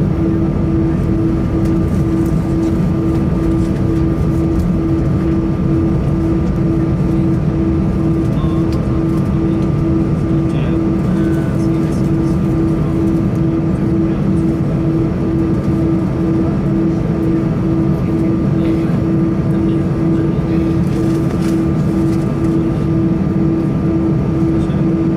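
Airbus A320 cabin noise while taxiing with the engines at idle: a steady low rumble with a hum that pulses evenly about twice a second and a faint steady whine above it.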